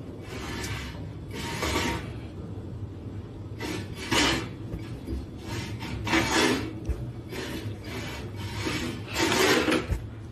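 Rasping, rubbing strokes repeated about every two seconds, five in all, each lasting about half a second.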